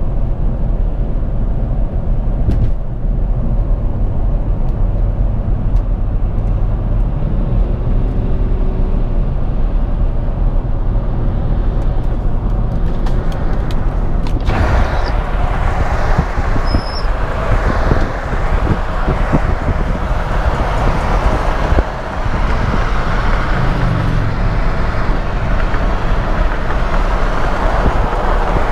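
Car driving, heard from inside the cabin: a steady low rumble of engine and tyres on the road. About halfway through, a louder, even rushing noise suddenly joins in and stays.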